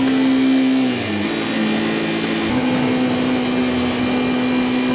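A small motorcycle running steadily at road speed, with engine and road noise, under background music of held low notes that shift pitch about a second in and settle back about midway.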